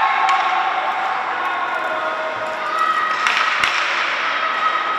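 Ice hockey game sound in a rink: sharp knocks of sticks, puck and boards, about a third of a second in and twice a little past three seconds, over shouting voices.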